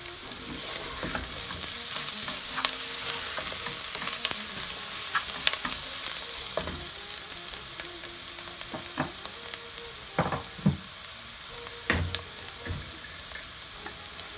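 Sliced onions frying in coconut oil in a nonstick pot: a steady sizzle, with scattered knocks and scrapes of a wooden spoon stirring against the pan and a few louder knocks a little past the middle.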